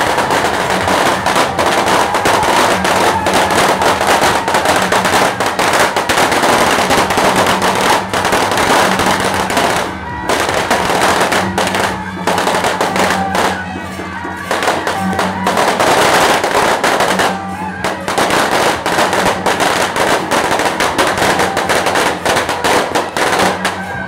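Strings of firecrackers going off in a long, rapid, continuous crackle, with a few brief lulls about halfway through.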